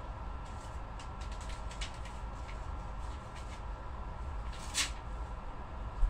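Steady low hum with scattered light clicks, a short rustle about five seconds in and a single thump just before the end.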